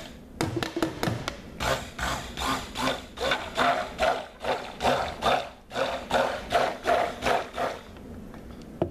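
Stick blender shaft worked through lye water and melted soap oils in a stoneware crock pot: a run of quick, irregular sloshing and knocking strokes, a few a second.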